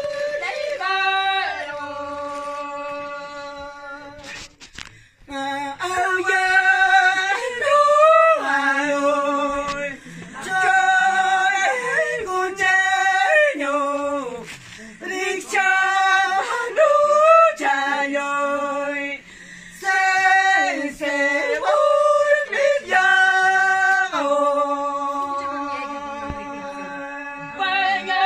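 Women singing a warawi (harawi), the Andean Quechua ceremonial song, unaccompanied: long, high held notes that slide down at the end of each phrase, with a short break about five seconds in.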